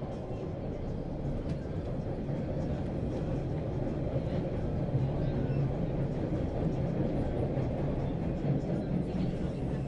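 Steady low rumble of a train in motion, as heard from a ride aboard, with faint light rattles now and then.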